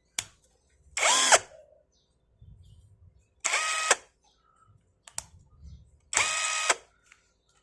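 Cordless impact wrench motor run free with no load in three short trigger pulls, each a brief whine that spins up and winds down, with a sharp click or two between the pulls.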